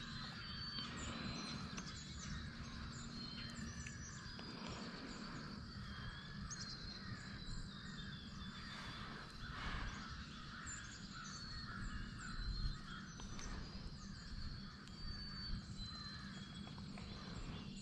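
Quiet woodland ambience: scattered small-bird chirps over a low wind rumble on the microphone. A couple of soft handling bumps come in the second half as the rifle is shifted.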